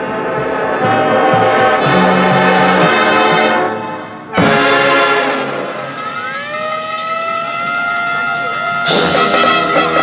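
High school marching band playing its field show. Brass chords swell and cut off about four seconds in, and a sudden loud hit follows. Several rising glides then settle into long held notes before the full band comes back in near the end.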